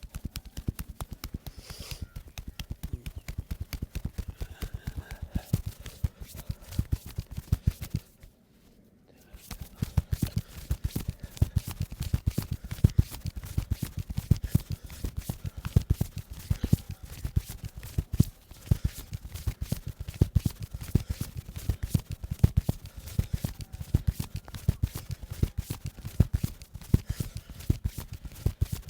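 Rapid percussive massage strokes: a masseur's hands striking a client's body in quick rhythmic chops or slaps, several a second, with a brief pause about eight seconds in.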